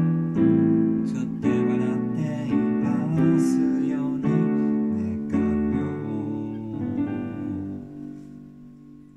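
Digital piano playing the closing bars of a song, a new chord struck about once a second. The sound thins out and the last notes die away near the end.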